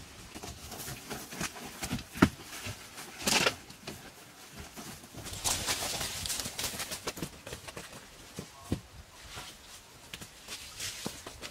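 Footsteps on dry ground and rustling of leaves and dry grass as people walk through brush, with a sharp knock about two seconds in. A longer, louder rustle comes around six seconds, as someone brushes close past leafy branches.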